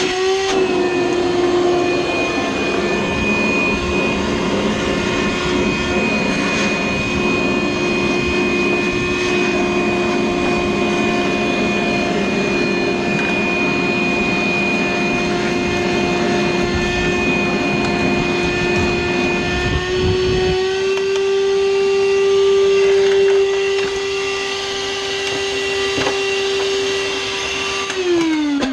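Vacuum cleaner running with a steady motor whine over rushing air. About two-thirds of the way through, the rushing air drops away and the whine rises a little in pitch: the vacuum is full and airflow is choked. Near the end the motor shuts off and winds down, its pitch falling.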